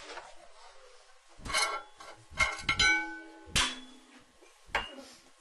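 A series of sharp clinks and knocks from hard objects being handled, a few of them leaving a brief ringing tone. They come about once a second, with a small cluster near the middle.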